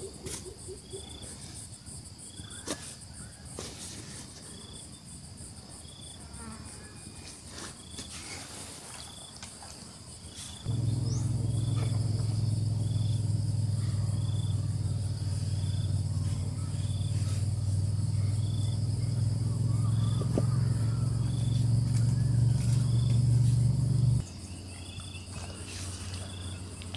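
Crickets chirping steadily at about one chirp a second over a continuous high insect hiss. About eleven seconds in, a loud, low, steady motor-like hum starts abruptly, runs for about thirteen seconds, and cuts off suddenly.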